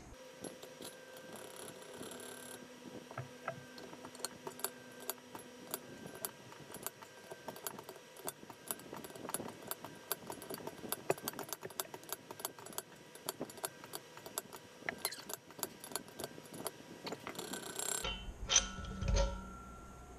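Quick, irregular metal clicks and light taps of a seal installer tool working an axle seal into the steel inner axle tube of a Dana 30 housing, with a couple of louder knocks near the end.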